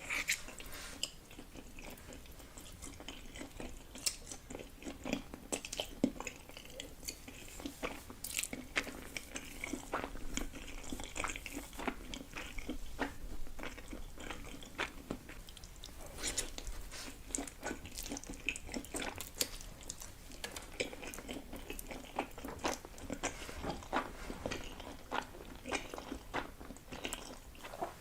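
A person eating close to the microphone: chewing and biting, with many short wet clicks scattered throughout.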